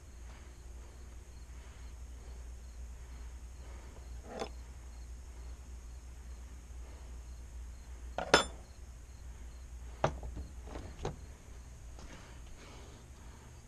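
Hand tools and metal motorcycle parts clinking during engine removal: four sharp knocks a second or more apart, the loudest about eight seconds in, over a steady low hum.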